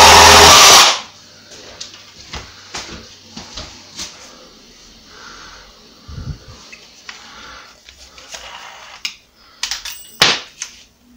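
Cordless jigsaw sawing through the painted board, stopping abruptly about a second in. Then small clicks and knocks as the jigsaw blade is changed, with a sharper snap near the end as the new blade goes into the blade clamp.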